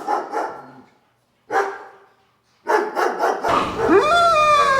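A dog barking, broken twice by short spells of total silence, with a long drawn-out bark that rises and falls in pitch near the end.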